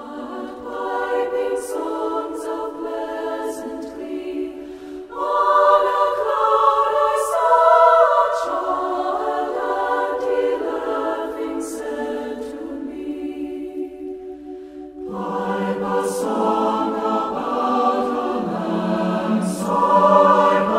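Choir singing long held chords in three phrases. The second and third phrases come in louder, about five and fifteen seconds in.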